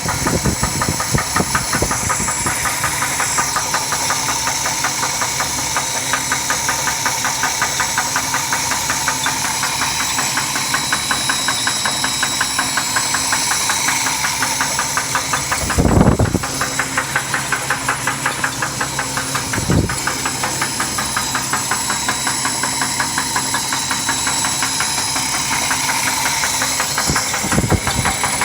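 Ford 250 inline-six engine running with a steady, rhythmic knock. Around the middle there is a louder thump, then a smaller one a few seconds later.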